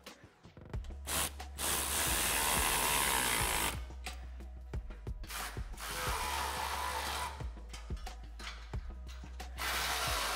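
Ratchet wrench tightening the band clamps on an exhaust system, in three runs of rapid ratcheting lasting one to three seconds each: the first about a second in, the next about six seconds in, the last near the end.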